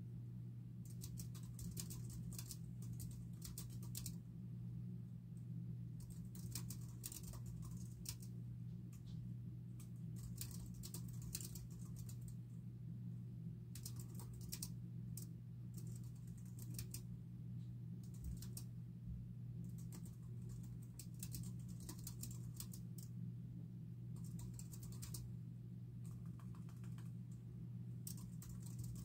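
Typing on a computer keyboard: fast runs of keystrokes lasting a second or two, broken by short pauses, over a steady low hum.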